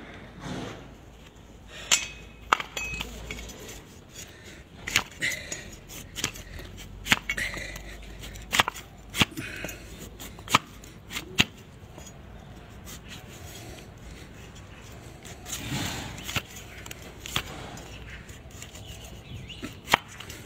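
Sharp, irregular cracks and knocks of a large flat hoof-trimming blade chopping and paring slices of hoof horn off an equine hoof against a wooden block, about a dozen strikes with a quieter stretch in the middle.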